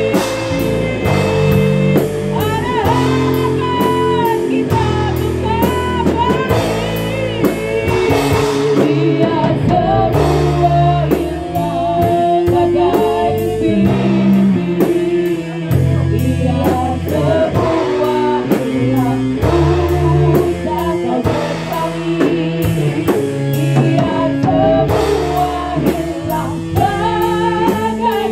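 Live rock band playing an instrumental stretch: electric guitars, bass and drum kit keep a steady beat, with a lead melody line that bends in pitch over it.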